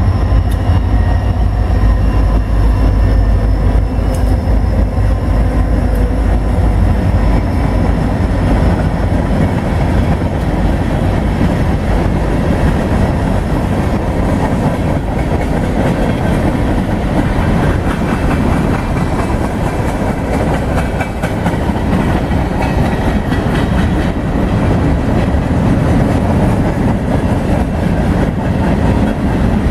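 Diesel freight train passing: the lead locomotives' engines run with a deep steady drone for the first several seconds. The drone gives way to the continuous rumble and clatter of freight cars rolling over the rails.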